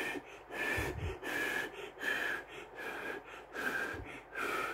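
A man blowing on a forkful of steaming hot instant noodles to cool them, in short breathy puffs about one every half second.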